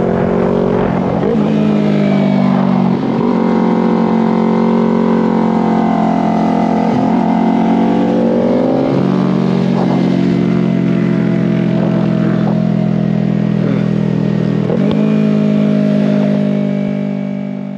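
Yamaha R3 parallel-twin engine running hard at high revs, holding a steady pitch for seconds at a time with brief drops at gear changes. The sound fades out near the end.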